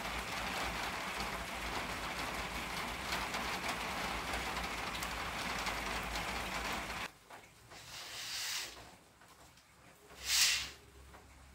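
Steady rain falling, which cuts off suddenly about seven seconds in. After it come a few faint small sounds and a short hiss near the end.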